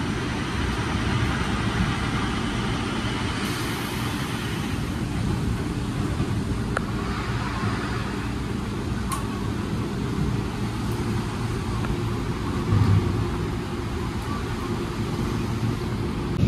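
JR 205-series electric train standing at a platform, its onboard equipment giving a steady low hum, over an even hiss of rain.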